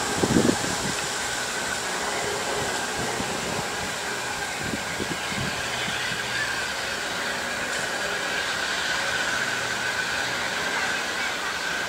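Saddle-tank steam locomotive approaching in the distance, a steady sound without distinct beats. A short, louder low burst comes right at the start.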